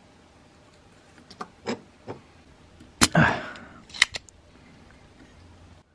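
Spring-loaded desoldering pump (solder sucker) firing about three seconds in: a sharp snap followed by a short rush of air as it pulls molten solder out of a circuit-board joint. Lighter clicks of the tool being handled come before it and a couple more just after.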